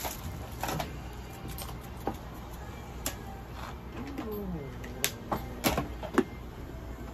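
A cat gives one meow about four seconds in, falling in pitch. Several sharp clicks and taps sound around it, the loudest just after the meow.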